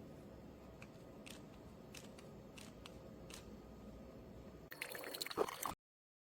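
Quiet room tone with a few faint scattered clicks, then about a second of louder rustling and knocking before the sound cuts off abruptly.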